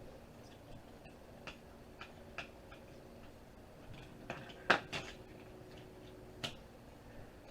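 Scattered small clicks and knocks of a Zip drive's parts being handled and pried apart during disassembly. The loudest is a sharp knock a little past the middle.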